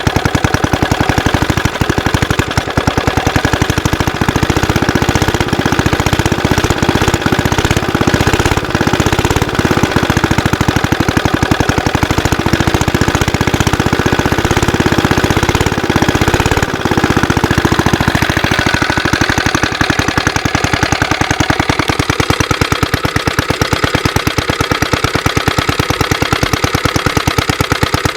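Rebuilt Suffolk stationary engine running steadily at idle with a fast, even firing beat. It is running sweetly now that its lapped valves have restored compression. There is a brief falter about two-thirds of the way through.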